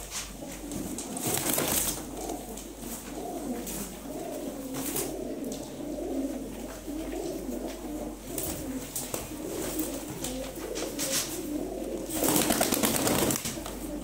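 A flock of domestic pigeons cooing continuously, many overlapping low warbling coos. Brief rustling flurries break in several times, the loudest, about a second and a half long, near the end.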